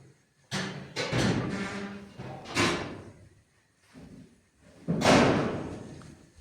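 Several heavy slams or thuds, each trailing off over about a second, the loudest about five seconds in, with music underneath.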